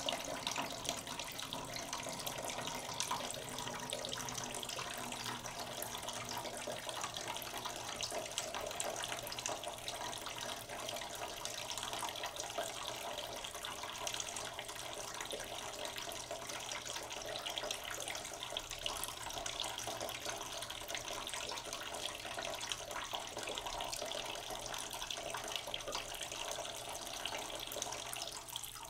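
Paratha frying in a pan: a steady sizzle with fine crackling.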